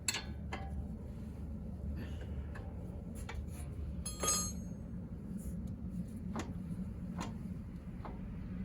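Scattered metallic clicks and knocks of tools and parts being handled, with one ringing clink about four seconds in, over a steady low hum.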